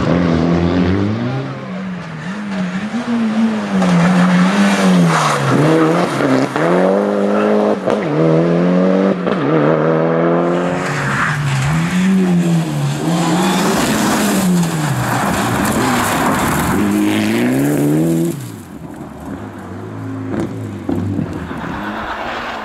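Mitsubishi Lancer Evolution rally car's turbocharged four-cylinder engine driven hard on a special stage, its pitch climbing and dropping again and again with gear changes and lifts. About three quarters of the way through it becomes quieter and more distant.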